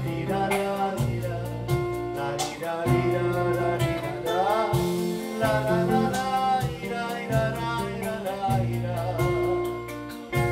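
Live Uruguayan murga song: acoustic guitar and hand percussion keeping a steady beat, with wordless singing over them.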